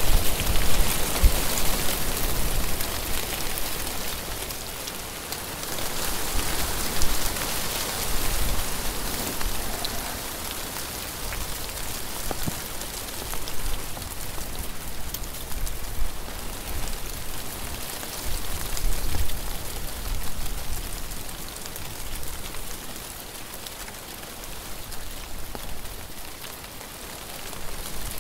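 Wind blowing through brush and leaves and buffeting the microphone: a steady rushing hiss with a low rumble, rising and falling in gusts.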